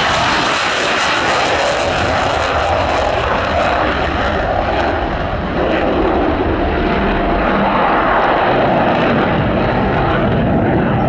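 F-16 fighter jet's engine at full power: loud, steady jet noise as the jet takes off, runs low along the runway and pulls up into a steep climb.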